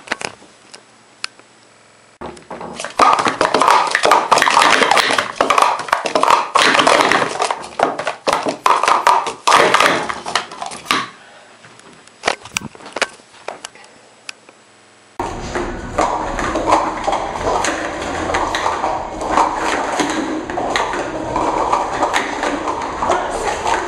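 Plastic Speed Stacks sport-stacking cups clattering on a stack mat in a rapid run of sharp clicks for about eight seconds as a cycle is stacked and taken down, then a few scattered taps. About fifteen seconds in, the sound cuts to a steady background din with more cup clatter.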